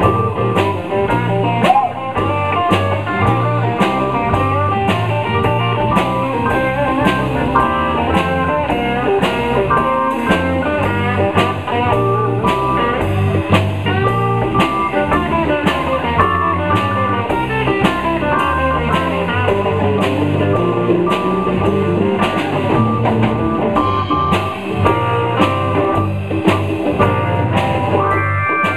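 Live blues band playing an instrumental passage: guitar and keyboard over a drum kit keeping a steady beat.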